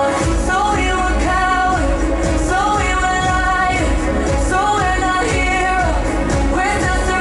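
Pop song with sung vocals over a heavy bass beat that kicks in at the start.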